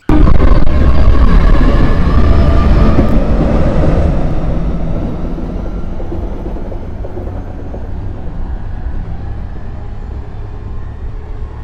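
Train moving away along the track, its rumbling running noise loud at first and fading steadily as it recedes.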